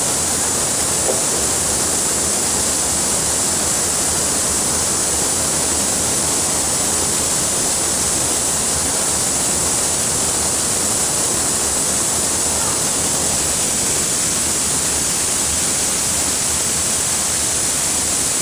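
Waterfall: falling water rushing steadily, a constant noise with no break.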